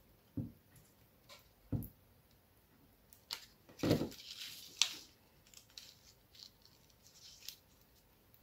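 Handling of paper and a glue pen on a wooden tabletop: scattered light knocks and clicks, with brief rustles of the paper strips as they are pressed and glued. The loudest knock comes about four seconds in.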